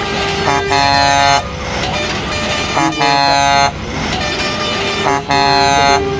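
Semi-truck air horns blasting: three long blasts, each under a second and about two and a half seconds apart. Lower horn tones and steady street noise sound between them.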